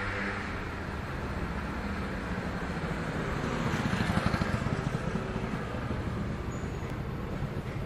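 Street traffic: a car engine running close by, growing louder and passing about four seconds in.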